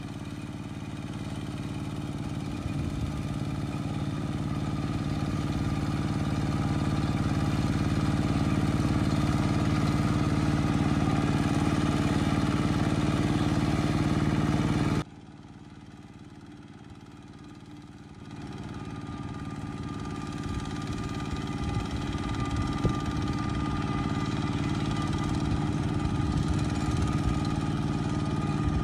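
A walking tractor's Kubota single-cylinder diesel engine runs steadily under load, pulling its cage wheels and plough through a flooded rice paddy. About halfway through the sound drops suddenly, then swells back up a few seconds later.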